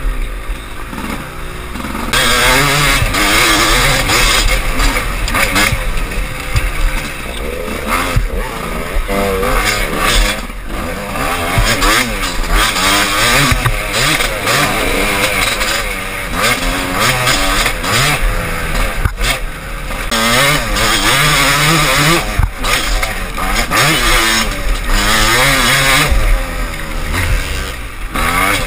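Off-road dirt bike engine heard on board as it is ridden hard along a trail, its revs climbing and dropping again and again with throttle and gear changes. It gets louder about two seconds in.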